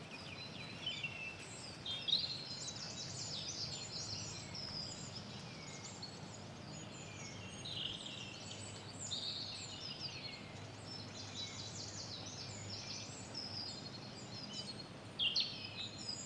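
Many songbirds singing at once, short chirps, trills and falling notes overlapping throughout, over a faint steady low hum.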